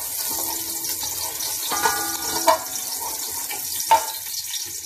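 Chopped onion sizzling in hot oil in an aluminium pot, a steady hiss, while a wooden spoon stirs and knocks against the pot a few times; one knock leaves the pot ringing briefly.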